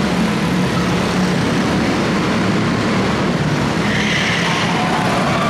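Quarter midget race cars' small Honda four-stroke single-cylinder engines running flat out around the track, a steady din of several engines together. From about two-thirds of the way in, the pitch of a nearer car rises and falls as it passes.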